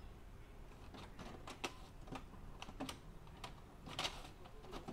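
HP Smart Tank 515 printer's internal mechanism making a run of about ten light, irregular clicks, the loudest about four seconds in.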